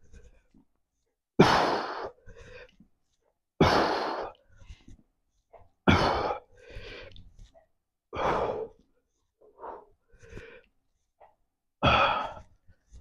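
A man exhaling hard with each crunch rep, five sharp breaths roughly two seconds apart, each fading quickly, with quieter breaths in between.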